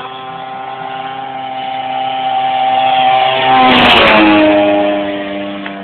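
Engine and homemade propeller of a 28% scale Extra radio-controlled aerobatic model plane making a low flyby. The sound grows louder to a peak about four seconds in, drops in pitch as the plane passes, then fades.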